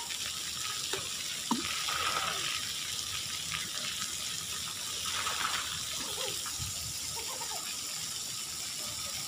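Water running and spraying at a splash pad, a steady even rush of water.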